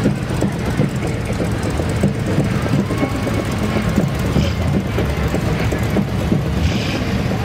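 Steady low engine rumble of cars and pickup trucks driving slowly past close by, the nearest a silver 1980s Chevrolet Monte Carlo followed by a pickup truck.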